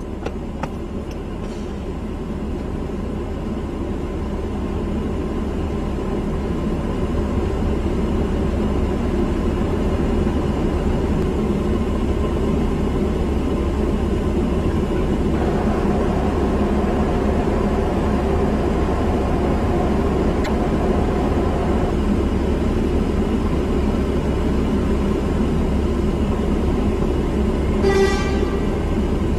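Steady engine and road noise of a car moving at speed, heard from inside, growing louder over the first several seconds. A short horn blast sounds near the end.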